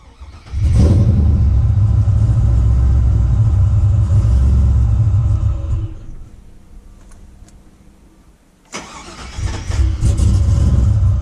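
A 6.0 L LS V8 in a Chevrolet Silverado being started: it fires about half a second in and runs loudly for about five seconds. Near 6 s it goes much quieter for about three seconds, then catches again with a sudden surge just before 9 s. This is the hard start of an untuned engine with ported heads, bigger injectors and a bigger throttle body, which takes a couple of tries and needs help on the throttle.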